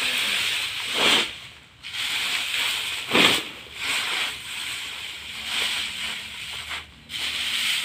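Dry bean plants and their pods rustling as armfuls are lifted and spread by hand over a plastic tarp, with two louder rushes about one and three seconds in.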